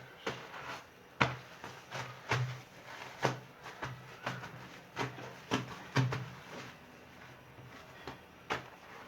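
A series of about a dozen light knocks and clicks at uneven intervals, some with a dull thud underneath, typical of kitchen items being handled and set down.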